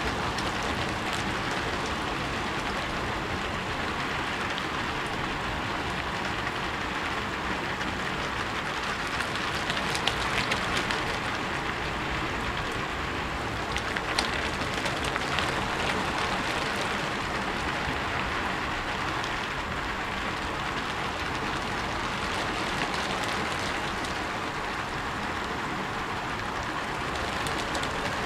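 Steady rain falling on a roof, a dense even hiss with scattered sharper drop impacts.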